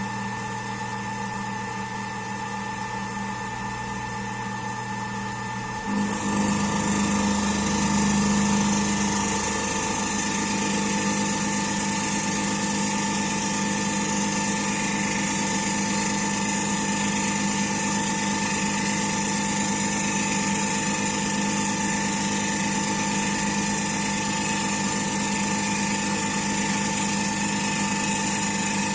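CNC milling machine running with a steady whine. About six seconds in it gets louder and a high hiss joins in, then holds steady as the machine mills a circular interpolation path.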